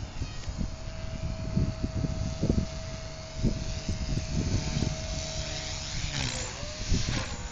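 Align T-Rex 250 electric RC helicopter whining at a steady high pitch, with low thumps underneath. About six seconds in, the whine falls in pitch as the rotor slows, then rises again briefly near the end.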